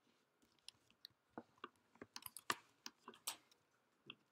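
Faint, irregular clicking of a computer mouse and keyboard as code is selected, copied and pasted, sparse at first and quickening from about a second and a half in.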